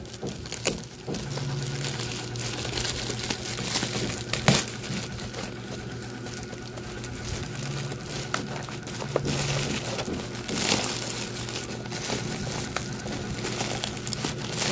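Black plastic bubble-wrap packaging crinkling and rustling as it is handled and pulled open, with scattered crackles and one sharp crackle about four and a half seconds in.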